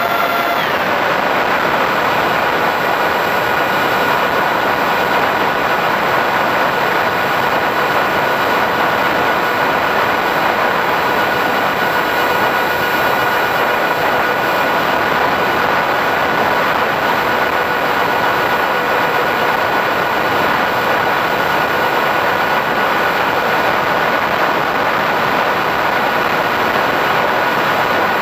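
RC model A-10 in flight, heard through its onboard camera: a steady motor whine over a constant rush of air, the whine dipping slightly in pitch about half a second in.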